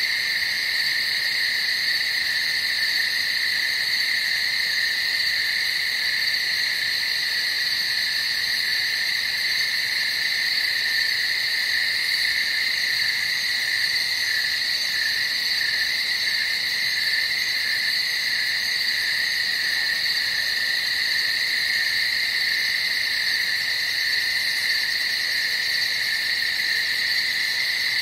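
A steady night chorus of many calling animals, a dense high-pitched trilling that never pauses or changes.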